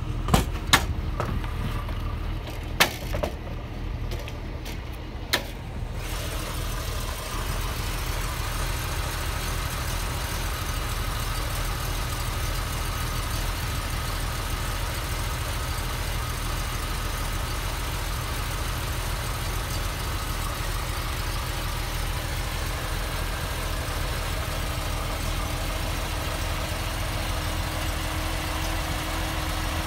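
A 1971 Ford 200 inline-six with a Weber 38/38 carburettor and a Clifford six-into-one header, idling steadily. A few sharp knocks come in the first few seconds. From about six seconds in, the engine sounds fuller, heard directly in the open engine bay.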